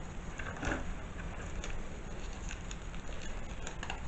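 A bundle of dried thyme and bay leaves handled and crumbled between the fingers: faint, scattered dry crackles and rustles, with a few sharper ticks about a second in and near the end.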